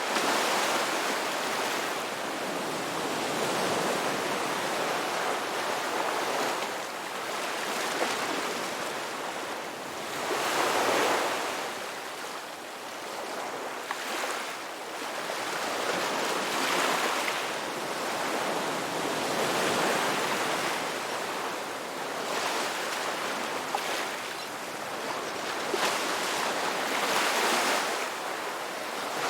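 Ocean waves breaking on a beach, a steady wash of surf that swells and ebbs every few seconds.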